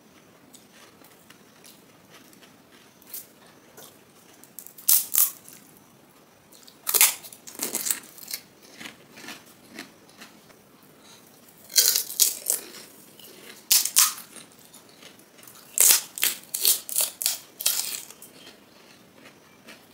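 Crisp, hollow panipuri (golgappa) shells cracking and crunching as they are bitten and chewed close to the microphone, in clusters of sharp crunches a few seconds apart with quiet gaps between.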